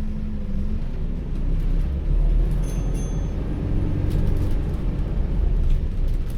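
Inside an ADL Enviro400H City hybrid double-decker bus on the move: steady low drivetrain hum and road rumble, growing louder about two seconds in, with a faint high whine for a moment near the middle.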